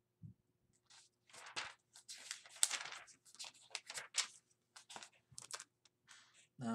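Paper pages being leafed through: a run of irregular rustles and crinkles.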